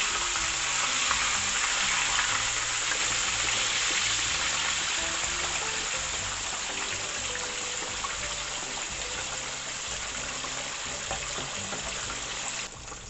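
Whole flour-dredged red tilapia frying in hot oil in a steel wok: a steady sizzle that drops away suddenly near the end. Soft background music underneath.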